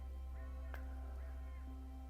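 Quiet background music with long held notes.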